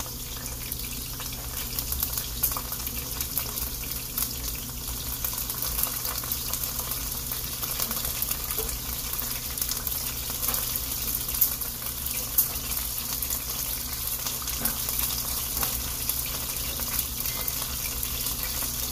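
Beef chunks sizzling in olive oil in a cast-iron skillet: a steady crackling hiss. A few sharp clicks come from metal tongs turning the meat in the pan, the loudest two a little past the middle.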